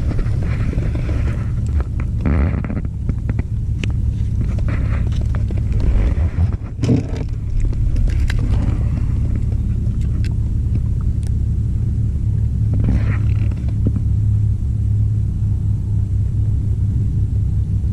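Steady low rumble throughout, with a few brief scrapes and knocks about two and a half, seven and thirteen seconds in.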